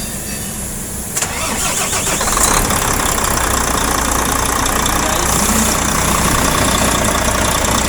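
Volvo D13 inline-six diesel engine cranking about a second in and catching, then settling into a steady idle, its first run after a camshaft replacement and valve clearance setting.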